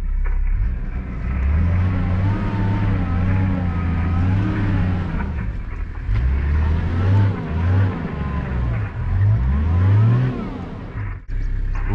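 A safari 4x4's engine revving up and down again and again, heard from inside the cabin, as the vehicle struggles stuck in mud. In the second half the revs climb in several quick surges.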